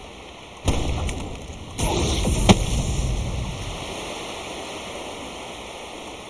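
Layered fantasy ambience sound effects played back from a website: a rushing, water-like noise. It swells suddenly twice, about two-thirds of a second in and again near two seconds, with a sharp knock just after, then slowly fades away.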